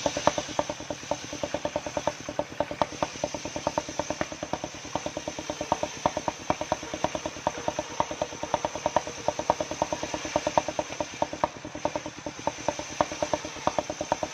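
Engine of a truck-mounted circular sawmill running steadily with a fast, even knock and a steady high whine, while a beam of albasia wood is ripped on the saw.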